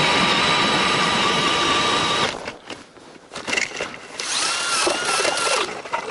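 Ice auger turned by a cordless drill, boring through river ice: the motor whines steadily over the grinding of the blades, then stops suddenly about two seconds in. After a moment of scraping, the drill runs again for about a second and a half.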